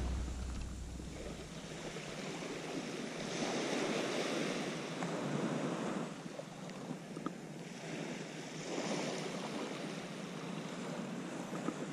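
Small waves washing onto a sand-and-pebble beach, the wash swelling and fading every few seconds, with some wind on the microphone.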